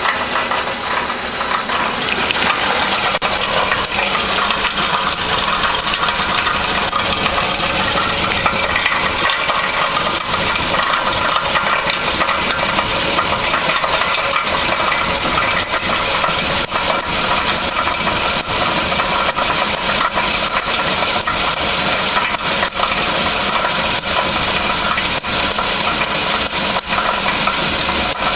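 2000 Honda Civic engine running with a steady, rapid metallic knocking and rattling, which the owner puts down to a catalytic converter and exhaust problem.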